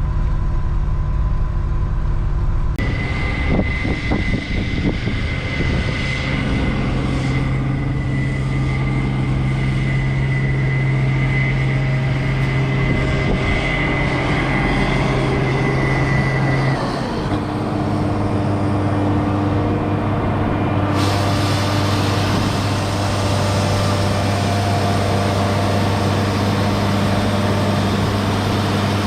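Grain truck engine running steadily. A thin high whine joins about three seconds in and stops about 17 seconds in, when the engine note shifts lower.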